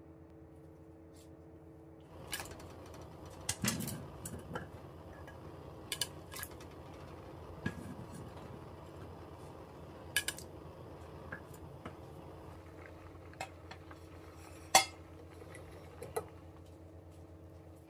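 Metal pots and utensils clinking and knocking in a kitchen: scattered sharp clicks over a steady low hum, the loudest knock coming near the end.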